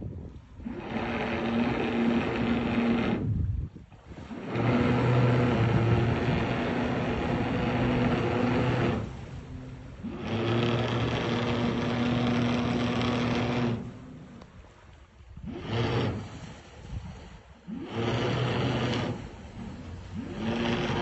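A motor running with a steady hum in stretches of a few seconds. It stops and starts again several times, with the stretches getting shorter near the end.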